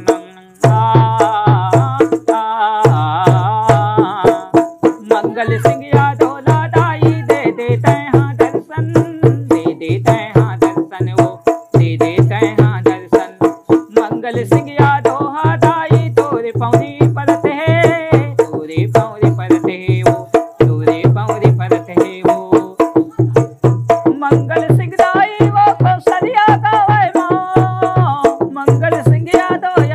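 A man sings a Chhattisgarhi jas geet (devotional folk song) over a steady beat on a rope-laced dholak. He breaks his words into repeated syllables to imitate an echo.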